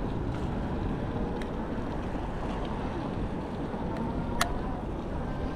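Steady low rumble of wind on the microphone and rolling noise while riding, with one sharp click about four and a half seconds in.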